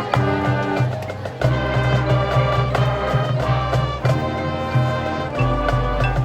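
High school marching band playing: brass and woodwinds hold chords over low brass, with regular sharp percussion hits. A deep bass note comes in near the end.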